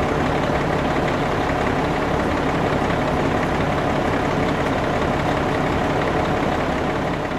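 Heavy vehicle engine running steadily, a construction-machine engine sound effect.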